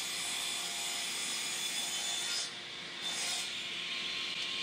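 Miter saw running with its blade cutting through a block of wood, a steady rasping noise that dips briefly about two and a half seconds in and then picks up again.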